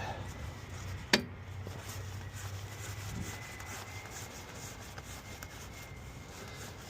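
A low steady hum from the bushing push/pull tool setup, fading out after about three seconds, with one sharp click about a second in as the tool is worked and reset.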